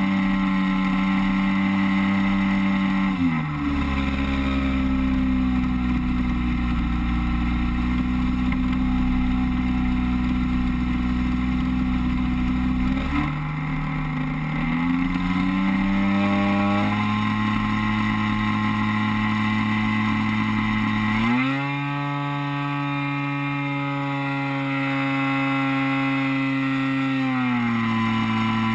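DLE 30 single-cylinder two-stroke gas engine and propeller of an RC DHC-2 Beaver floatplane in flight, heard from a camera mounted on the plane. The engine note drops a few seconds in, climbs back in steps through the middle, jumps up sharply about two-thirds of the way through and drops again near the end as the throttle is worked.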